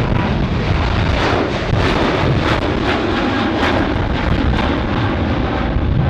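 Emirates Boeing 777's twin jet engines at high thrust during a go-around, a loud steady roar with short crackles as the airliner climbs away from a missed approach.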